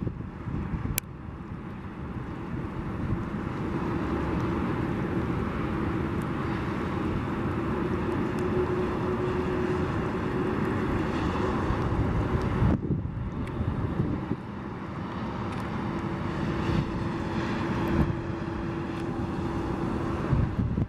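Boeing 737's jet engines running at idle, heard as a steady rushing noise with a low hum through wind and sleet on the microphone. The sound drops suddenly about 13 seconds in and builds back up.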